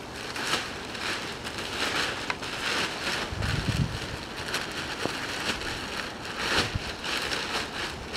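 Plastic vapor-barrier sheeting crinkling and rustling as it is pulled out and unfolded, in irregular crackly rushes.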